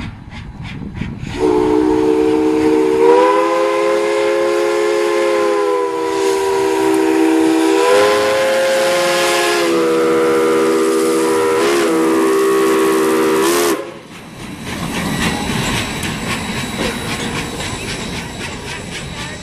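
Steam whistle of the Prairie Dog Central's 4-4-0 locomotive No. 3 blowing one long blast of about twelve seconds. It sounds several tones at once, wavers slightly in pitch and cuts off abruptly, followed by the steady rushing noise of the moving train.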